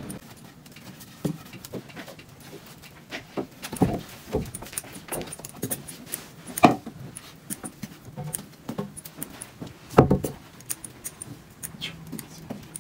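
Wooden camel-driven sesame-oil mill (kharasi) turning, with irregular clacks and rattles of wood and harness and louder knocks about four, seven and ten seconds in.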